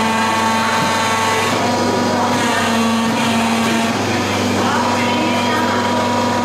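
Steady whirring hum of the electric drive motors of children's ride-on amusement excavators working their arms and buckets, with people's voices in the background.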